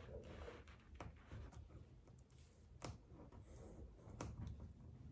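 Near silence, with a few faint sharp clicks and light rustles from vinyl wrap film being handled and peeled at a door handle.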